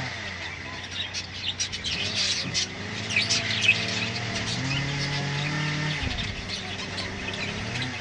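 Budgerigars chirping and chattering in quick bursts of short, high calls, busiest in the first half. A low engine hum runs underneath and drops away about six seconds in.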